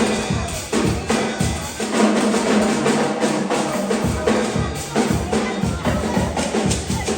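Music driven by a drum kit, with bass drum and snare strokes keeping a steady beat.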